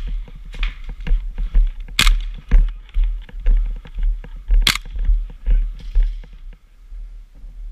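Two single airsoft gun shots, sharp cracks about two seconds in and again near five seconds. Under them are rhythmic low thumps about twice a second that stop about six seconds in.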